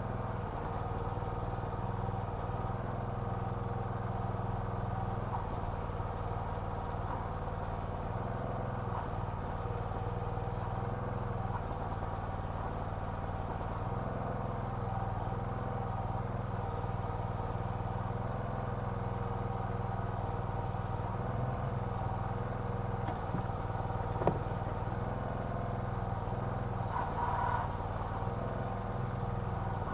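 Small gasoline engine of a Red Rock towable backhoe running steadily while the backhoe is worked, with one sharp knock about 24 seconds in.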